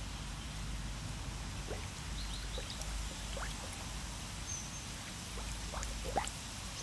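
Water drops falling into a garden pond: a sparse scatter of short, rising plinks over a low steady rumble, the loudest about six seconds in.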